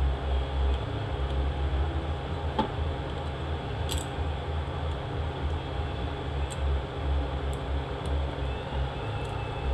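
A steady low hum from running machinery or ventilation, with a few light clicks of small metal transmission parts handled and fitted together by hand.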